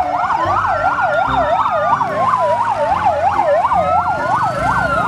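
Fire engine sirens sounding together: one in a fast yelp sweeping up and down about three times a second, the other in a slow wail that falls and then rises again.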